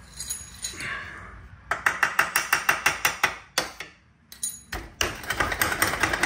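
Hand ratchet wrench clicking rapidly as a bolt is backed out of a golf-cart frame, in two runs with a short pause between them.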